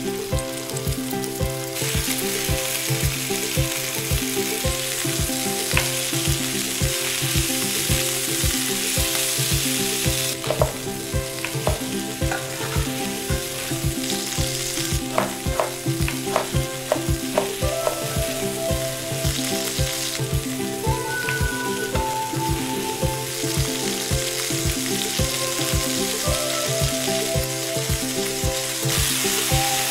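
Ribs searing in a hot enamelled cast-iron pan: a dense, steady sizzle of meat and fat frying, its strength shifting a few times. Background music with a steady beat plays underneath.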